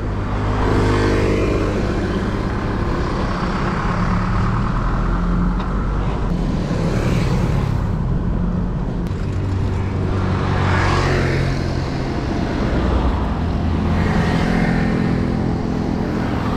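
Road traffic close by: car and truck engines running in a steady rumble, with several vehicles swelling past one after another.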